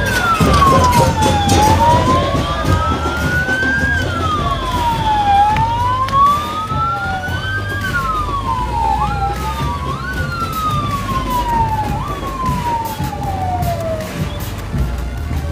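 Emergency vehicle sirens wailing, each one rising and falling slowly in pitch over a few seconds. A second siren joins out of step partway through, and the wail stops shortly before the end, over a steady low rumble.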